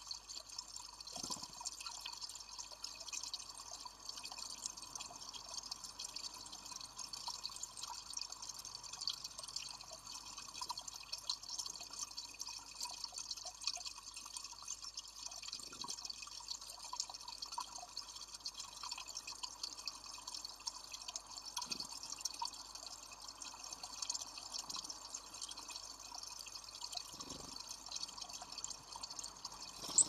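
Water steadily trickling and dripping from a small rock cascade into a pool.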